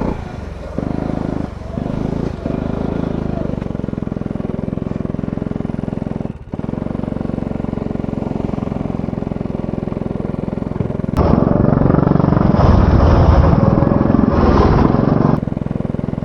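Go-kart engine running on track, its note dipping briefly several times in the first few seconds as the throttle is lifted and picked up again. From about eleven seconds in, for about four seconds, it becomes louder, rougher and more muffled.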